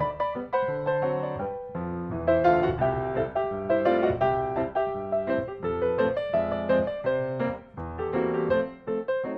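Background music: piano melody with chords.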